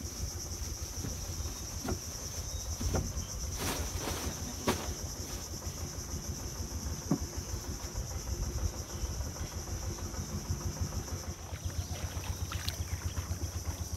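Small boat engine running with a low, rapid putter whose beat grows plain after about eight seconds, over a steady high-pitched insect chorus. Two sharp knocks come about a second apart near four seconds in.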